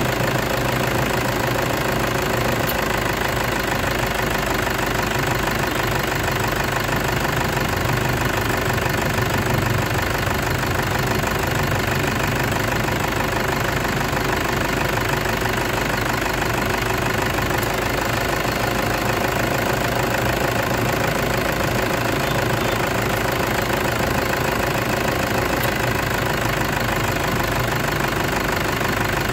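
Toyota Hilux engine idling steadily, its speed unchanging.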